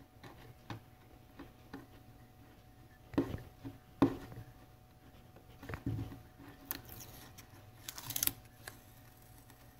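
Hands handling a wooden popper lure and blue masking tape on a workbench: a few light knocks and taps on the bench, and short rasps near the end as the tape is worked.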